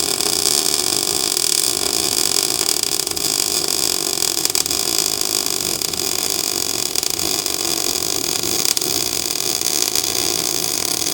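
Best Arc MIG 145 wire-feed welder running one long continuous bead on 110-volt power: the arc makes a steady crackling hiss without a break.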